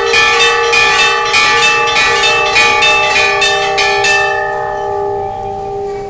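Hindu temple bells rung rapidly for the aarti, several bells of different pitch struck about three times a second. The striking stops about four seconds in and the ringing fades away.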